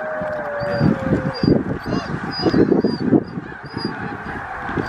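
A huge flock of snow geese calling, a dense, unbroken din of many overlapping honks.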